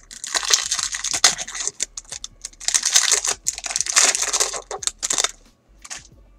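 Foil wrapper of a Bowman's Best baseball card pack torn open and crinkled as the cards are slid out, in two bursts of crackling.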